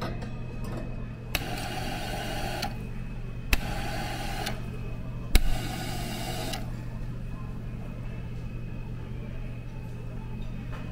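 Self-serve Cornelius soda fountain pouring a carbonated drink into a glass in three short spurts, the later ones each starting with a sharp click of the dispensing valve. A steady low hum runs underneath.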